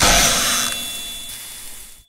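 Intro-logo sound effect: a sudden loud metallic clang with a ringing tone, fading steadily and then cutting off abruptly near the end.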